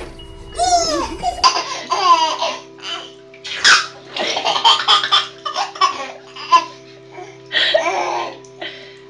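Baby laughing in repeated short bursts of giggles and belly laughs, over steady background music.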